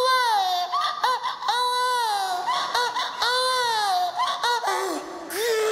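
A man's voice imitating a crying baby: three long, high wails that each fall in pitch, with short yelps between them.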